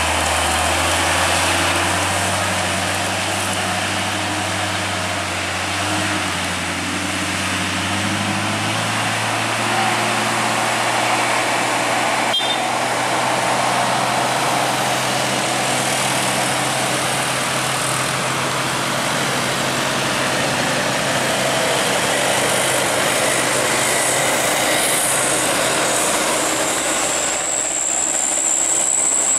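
Heavy box truck's diesel engine pulling up a steep grade, fading within the first several seconds as it moves away, leaving a steady road-traffic noise. A single sharp click comes about halfway, and a high steady whine starts near the end as other vehicles come along behind.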